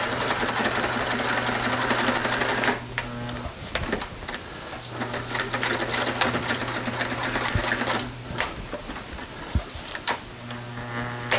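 Electric sewing machine stitching through layered tarp in three runs, stopping briefly twice with a few clicks in the pauses. It is run forward and in reverse to back-tack and reinforce the end of the seam.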